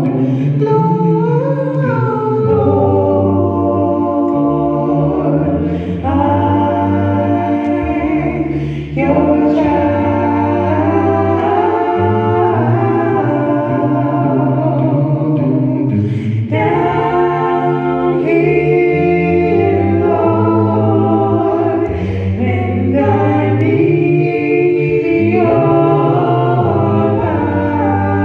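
Choir singing a slow gospel worship song in harmony, holding long chords that change every few seconds.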